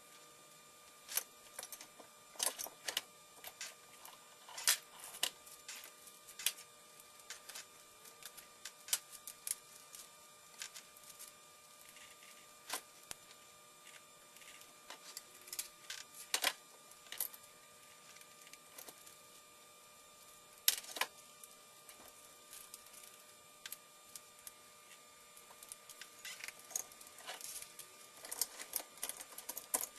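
Irregular clicks and taps of small hard plastic parts being handled, with a few sharper knocks, over a faint steady electrical hum.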